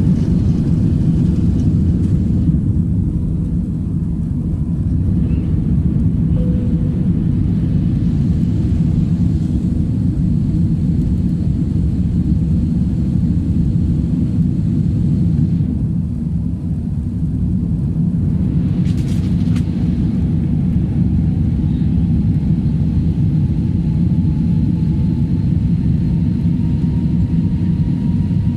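Airbus A320 cabin noise in flight: a steady low rumble of the jet engines and airflow heard from inside the passenger cabin.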